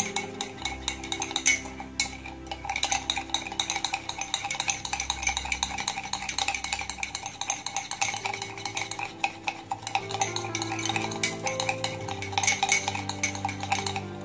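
A metal spoon is beating instant-coffee paste in a ceramic cup, making rapid clinking and scraping strokes against the cup's sides. Soft background music with held notes plays underneath.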